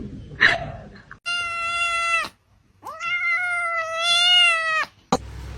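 Cat meowing: two long, steady, high meows, the second about two seconds long, with a brief gap between them.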